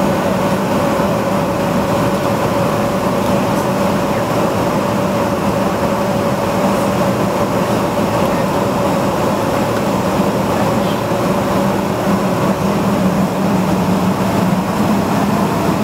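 Airliner cabin noise with the jet's engines running at low power on the ground: a steady rushing hum with a held mid-pitched whine and a lower drone.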